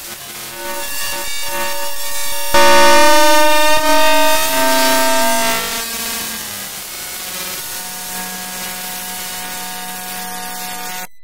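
FM-synthesised electronic tones made from the RGB values of image scan lines, with several pitches sounding at once. About two and a half seconds in it jumps louder and some pitches glide, then it settles into steadier held tones and cuts off sharply near the end.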